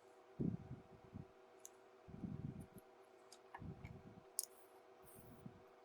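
Faint handling sounds while a Velcro strap is sewn onto a laptop AC adapter's cord: a few sharp, scattered clicks, the clearest about three-quarters of the way in, and soft low rustles.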